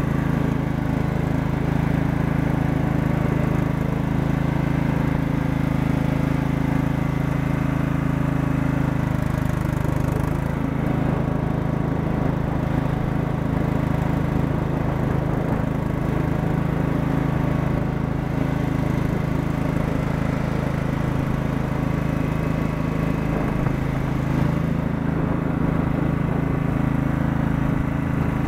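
Lawn tractor's transplanted 14 hp Kohler Command engine running steadily under way as the tractor drives along. Its note changes about ten seconds in and changes back near twenty-five seconds.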